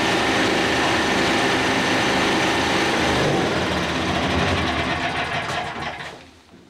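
A freshly repaired engine-driven generator set runs steadily, then is shut off about five seconds in and winds down to a stop near the end.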